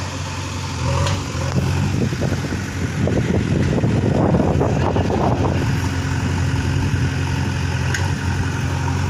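JCB 3DX backhoe loader's diesel engine running steadily, with a louder, rougher stretch in the middle as the machine works, filling in a pit with soil.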